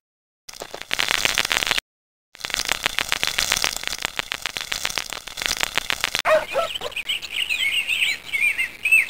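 Cartoon sound effect of termites scurrying through a tunnel: a dense, rapid dry ticking, cut by two brief silences near the start. From about six seconds in, songbirds chirp instead.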